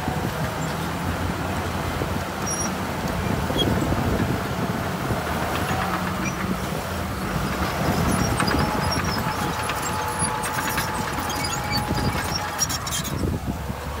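Heavy diesel construction machinery running steadily, with scattered light clinks.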